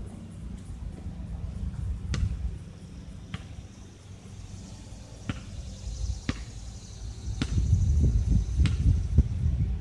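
Basketball bouncing on an outdoor concrete court at a distance, a sharp slap about once a second. Under it runs a low rumble of wind on the microphone that swells near the end.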